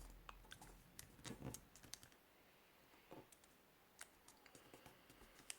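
Faint, scattered clicks and rustles of square coloured origami paper being folded and creased by hand.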